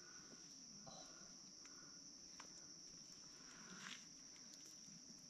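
Near silence: night insects, such as crickets, keep up a steady high-pitched trill, with a few faint clicks of a spoon against the metal pot.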